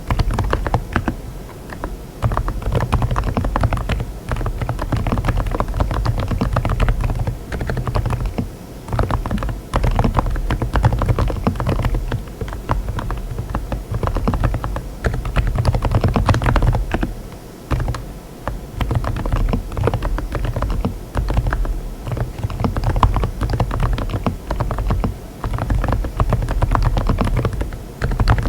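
Continuous fast typing on a mechanical keyboard fitted with Saebyeok silent tactile switches. The keystrokes are dense and dull, low-pitched, with short pauses between runs.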